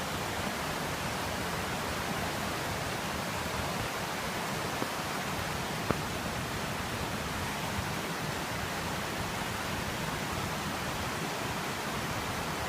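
Steady rushing of falling water from Thunderbird Falls and its creek, an even unbroken hiss, with a single small click about six seconds in.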